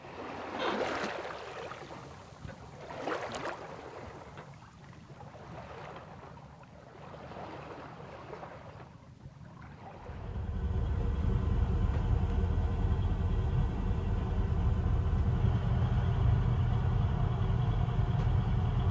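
A boat's diesel engine droning steadily, starting abruptly and loud about ten seconds in; before that only a few soft rushing swishes.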